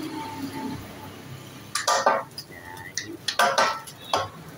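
Metal spatulas clanking and scraping on a steel teppanyaki griddle: a quiet start, then clusters of sharp metallic clatter about two seconds in and again near three and a half and four seconds.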